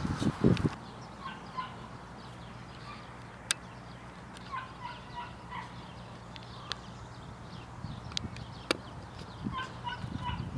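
Bird calls: clusters of short, quick repeated notes, twice, with a few sharp clicks in between.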